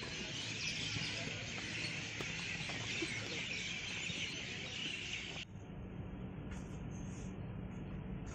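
A steady high chirring of insects, typical of an outdoor evening, cuts off suddenly about five seconds in. It gives way to quieter indoor room tone with a low steady hum.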